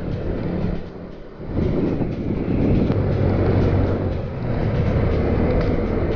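Motorcycle engine running as the bike cruises, with wind rushing over the microphone; the sound dips briefly about a second in.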